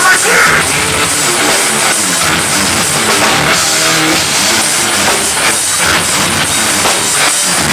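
Metal band playing live and loud: distorted electric guitars and bass over a drum kit.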